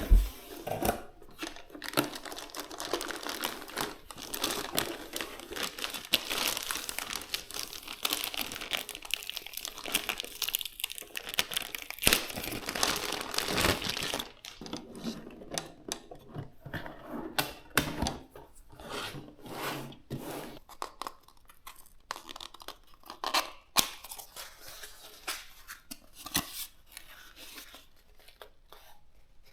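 Packaging being opened by hand: dense crinkling and tearing for the first half, then scattered sharp clicks and knocks of parts and packaging being handled, thinning out toward the end.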